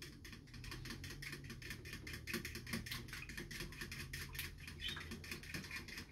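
Metal fork whisking beaten eggs in a ceramic bowl: a fast, steady run of light clicks and taps as the fork strikes the bowl.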